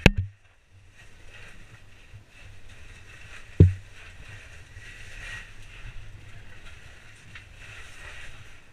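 Two sharp knocks of a caver's gear moving on an SRT rope against the rock, one at the very start and one about three and a half seconds in, over a faint steady hiss.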